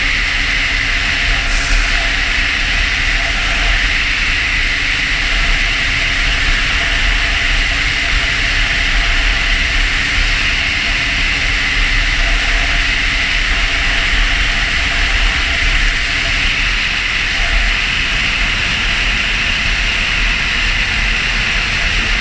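Snowmobile at steady speed, heard from the rider's own sled: a loud, constant hiss of engine, track and wind noise, with a fluttering low rumble of wind on the microphone.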